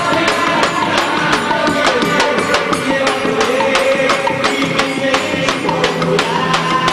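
Music with a steady, quick percussion beat, about four strokes a second, under a sustained melody line.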